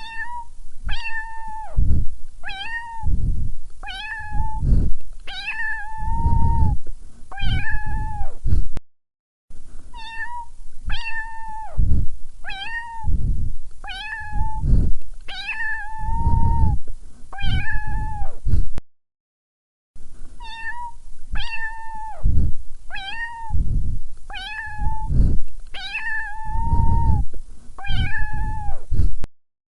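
A cat meowing over and over, about one short call a second, with low thuds beneath the calls. The calls come in three runs broken by two brief silences.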